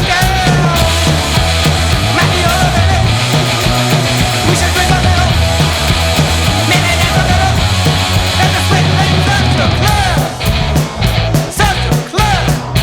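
Punk rock band playing loud and dense, with a heavy bass line under the guitars. In the last few seconds the band breaks into stop-start hits with short gaps between them.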